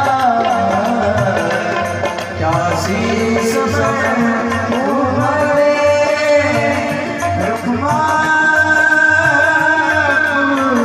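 Indian devotional kirtan music: a singer holding long, sliding notes over tabla and dholak accompaniment.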